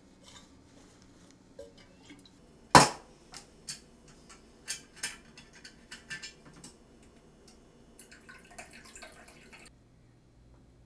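Kitchen clatter: one loud bang a little under three seconds in, then a run of lighter knocks and clinks of metal kitchen things, and a stretch of scraping and rustling near the end.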